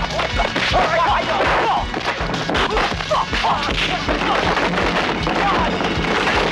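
Action-film fight soundtrack: music over a rapid run of crashes, whacks and thuds.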